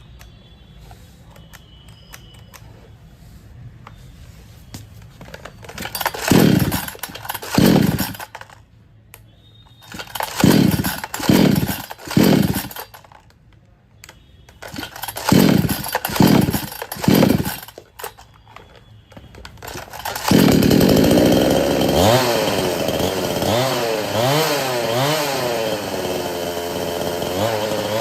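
58 cc two-stroke chainsaw being pull-started: eight short rattling yanks of the recoil starter in three groups, then the engine catches about twenty seconds in and runs, its speed rising and falling unevenly. This is a saw that struggles to pick up and take load.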